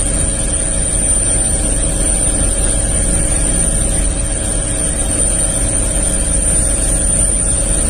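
Steady, loud engine and rotor drone of a helicopter in flight, heard from inside the cabin, with a constant high whine over a low rumble.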